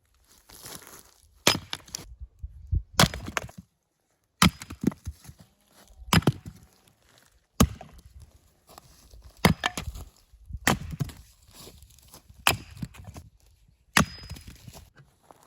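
Firewood being chopped: sharp, solid blows about every second and a half, some followed by a quick second knock.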